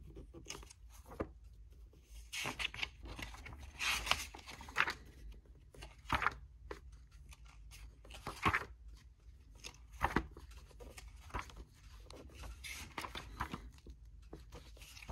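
Paper pages of an old hardcover book, made around 1930, being turned and smoothed down by hand: a string of short paper rustles and flaps at irregular intervals.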